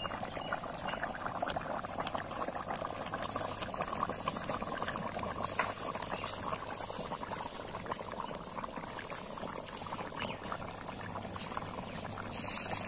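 Egg curry simmering in a wide metal pan over a wood fire, the thick gravy bubbling steadily with many small pops.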